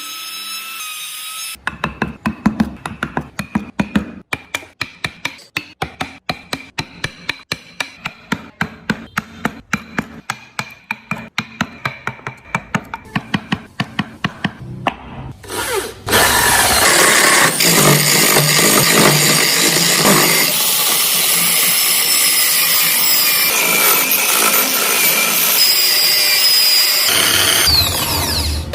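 Hand tool working wood in quick regular strokes, about four a second, for the first half. Then a handheld power tool runs steadily against the wood for about twelve seconds and stops near the end.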